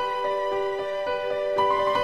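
Slow instrumental background music with long held notes that change about once a second.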